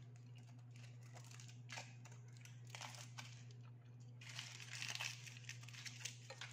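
Aluminium foil wrapped around a sandwich crinkling in short bursts as it is handled, busiest about four to five seconds in, while she chews a bite; a steady low hum runs underneath.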